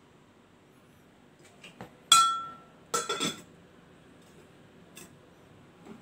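Glass lid of a RoadPro RPSL-350 slow cooker being set onto the pot: one loud ringing clink, then a brief rattle of knocks about a second later as the lid settles.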